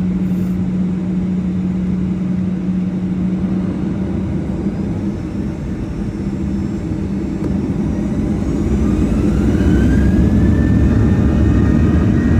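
Boeing 737-800's CFM56-7B jet engines running with a steady hum, then spooling up for takeoff: from about two-thirds in they grow louder with a rising whine that levels off near the end.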